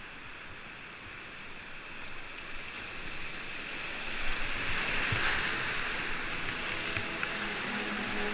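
Whitewater rapids rushing close to a kayak-mounted camera: a steady rush of churning water that grows louder over the first few seconds. Music fades in near the end.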